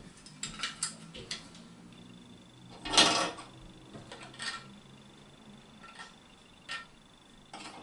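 Hard plastic clicking and knocking as a toilet cistern lid and its flush push-button part are handled, with one louder clatter about three seconds in.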